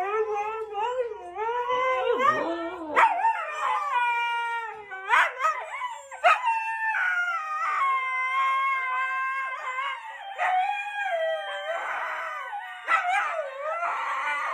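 A dog howling in long, wavering notes that bend up and down in pitch, one howl running into the next with only brief breaks.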